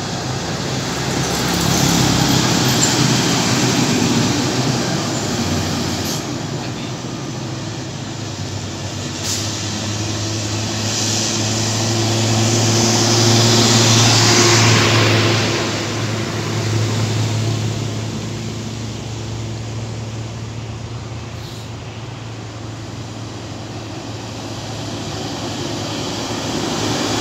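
Diesel trucks passing on a road: engine drone with tyre and wind rush, swelling as each nears. It is loudest about halfway through, as a tanker truck goes by close.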